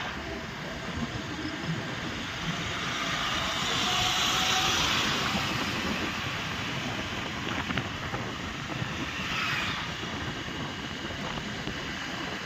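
Road traffic noise: a steady rumble of vehicle engines and tyres, swelling louder about four seconds in as a vehicle goes by, with a smaller swell near the end.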